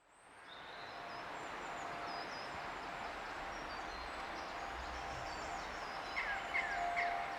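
Outdoor birdsong: many birds chirping high and briefly over a steady background hiss, fading in at the start, with three louder calls close together near the end.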